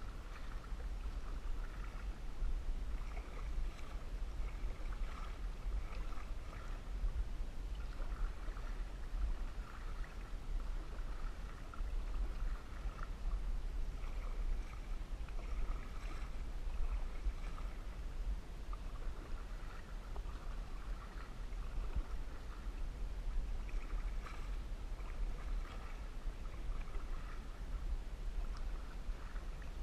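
Canoe paddle strokes in lake water: a swish and splash of the blade coming and going in a steady rhythm, over a constant low rumble.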